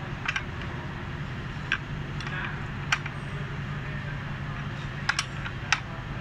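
Scattered sharp metallic clicks of a hand spanner working the nut that clamps a training wheel's bracket to a kids' bicycle's rear axle, about seven clicks at irregular intervals, some in quick pairs, over a steady low hum.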